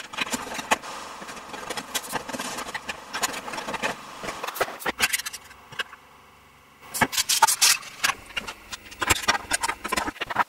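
Quick, irregular clicks, taps and rustles of plastic parts and tools being handled on a workbench, with a quieter stretch about halfway through.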